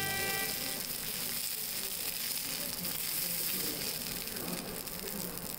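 A slice of beef sizzling on a hot iron griddle plate.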